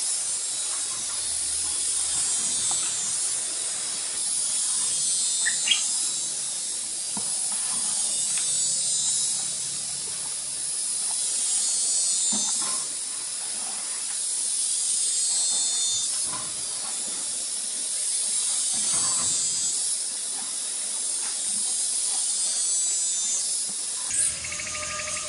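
Insect chorus: a steady high-pitched buzzing that swells and fades every few seconds.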